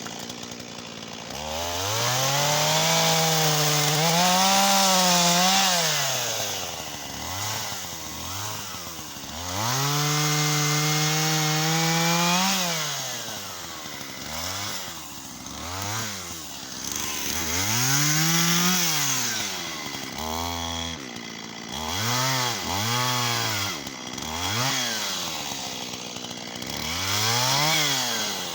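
Shindaiwa 488 two-stroke chainsaw cutting wattle, revved repeatedly: two long stretches at full throttle of a few seconds each, and several short blips of the throttle dropping back to idle in between.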